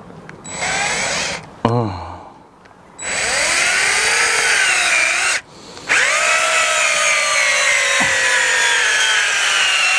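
DeWalt 10.8 V cordless drill-driver running on an aftermarket eBay replacement battery, driving a long screw into a log in several runs with short stops between. In the last and longest run the motor's whine sinks slowly in pitch as it labours, and the battery barely gets the screw in.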